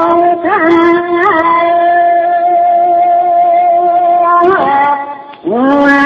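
A stemmed beer glass made to sing by a fingertip rubbed around its rim: a loud, sustained, voice-like tone that swoops up in pitch twice early on, holds steady through the middle, breaks off about five seconds in and comes back with a rising slide.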